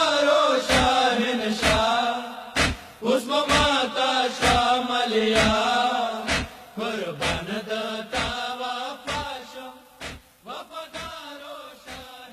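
Voices chanting a Pashto noha lament, kept in time by chest-beating (matam) thumps about once a second, fading out near the end.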